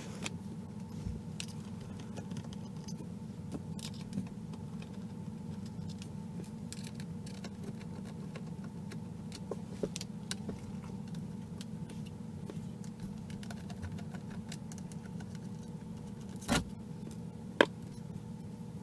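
Small scattered clicks and taps of a screwdriver and screws being worked on a laptop, with two sharper clicks near the end, over a steady low hum.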